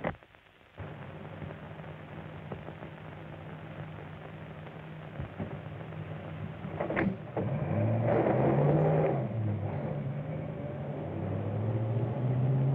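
An early-1930s car's engine running steadily. About seven seconds in, a car door slams shut, and the engine then revs up and down as the car pulls away.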